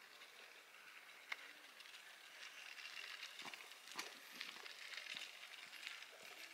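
Faint outdoor ambience: a soft, even hiss with scattered light clicks and taps, growing a little louder toward the end, with a sharper click about a second in and another about four seconds in.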